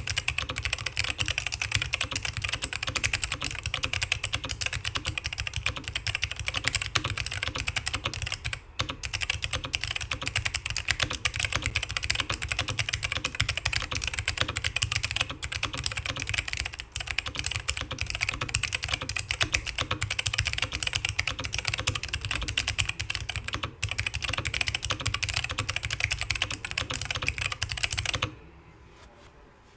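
Continuous fast typing on a Geonworks Frog TKL mechanical keyboard with lubed black Alps switches on a carbon fibre plate: a dense, steady stream of keystrokes that stops about two seconds before the end.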